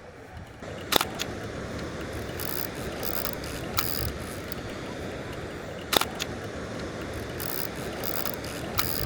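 Kowa Six medium-format film camera being worked: sharp shutter clicks about a second in, around six seconds and near the end, with the ratcheting rasp of the film-advance crank in between, over steady outdoor background noise.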